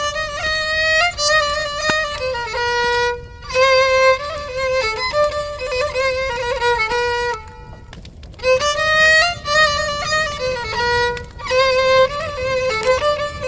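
Solo violin playing a slow melody from a sad Qashqai Turkic song, a single line moving by small steps, in phrases that break off briefly twice.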